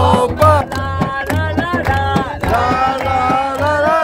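Traditional Nubian song sung by a man, held notes gliding up and down, over a steady hand-drum beat and hand clapping.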